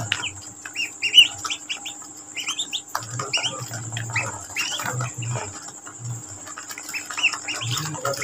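A group of Pekin ducklings peeping: many short, high, upward-sliding peeps, several a second and overlapping, with intermittent low bumping underneath.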